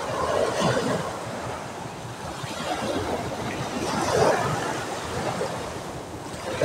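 Small waves breaking and washing up onto a sandy beach, swelling and easing as each wave comes in.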